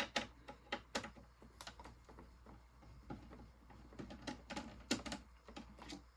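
Irregular light clicks and taps of small hard parts being handled: a motherboard's M.2 heatsink covers being taken off and set down. The loudest clicks come right at the start, about a second in, and near the five-second mark.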